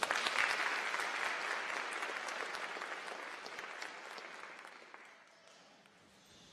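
Audience applauding, beginning suddenly and then thinning out and fading away over about five seconds.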